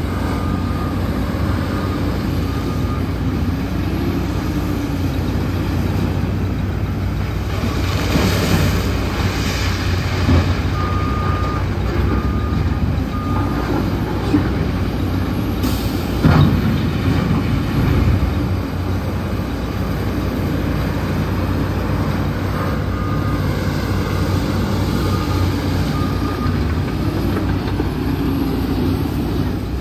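Heavy diesel truck engine running steadily, while a reversing alarm beeps in three short runs of a few beeps each. A single sharp bang sounds about sixteen seconds in.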